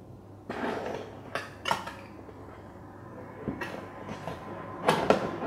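A cardboard kit box being opened by hand and its lid handled: rustling and scraping with several sharp knocks, the loudest two close together near the end.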